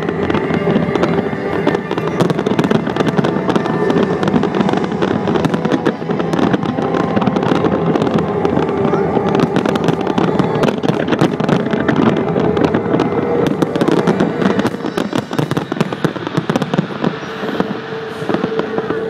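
Fireworks display at its height: a dense, continuous barrage of shell bursts, bangs and crackling, thinning out near the end.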